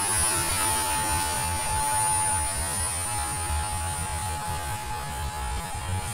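Steady high-pitched whine of a 3D-printed F4D Skyray model jet's 50 mm electric ducted fan as it flies away after a hand launch, the pitch dropping slightly about three seconds in. Wind rumbles on the microphone underneath.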